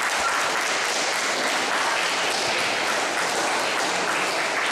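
Audience applauding, a steady clatter of many hands clapping.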